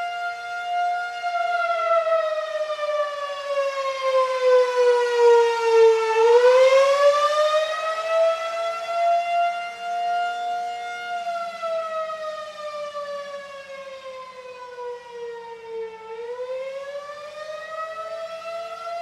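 Federal Signal 2001-SRN rotating electromechanical outdoor warning siren sounding the attack signal. Its wail slides down in pitch for about five seconds, then climbs back up, and does this twice, swelling and fading in loudness.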